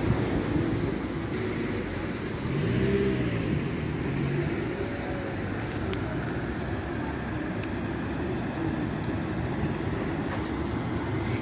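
Double-decker bus pulling away and driving toward the listener, its engine note rising and falling twice as it gets under way, over steady traffic noise.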